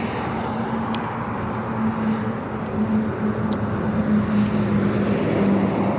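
A steady motor hum over a rushing noise, growing slowly louder.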